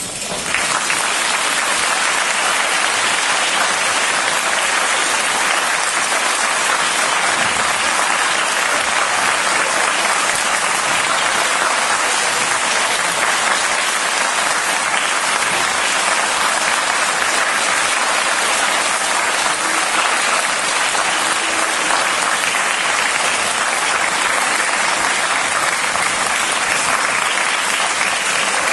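Audience applause in a concert hall, breaking out just as the music ends and continuing steadily.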